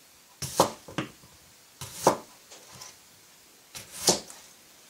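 Chef's knife slicing through a raw potato onto a wooden cutting board: three cuts about one and a half to two seconds apart, each a short crunch ending in a knock of the blade on the board, the last one the loudest.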